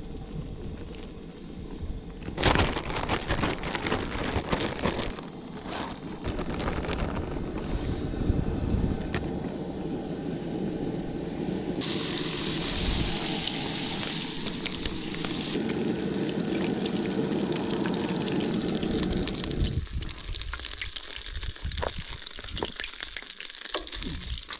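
Camp cooking sounds as catfish is prepared for frying: liquid pouring and stirring and the fish being handled. The sound changes abruptly several times, as in separate short shots.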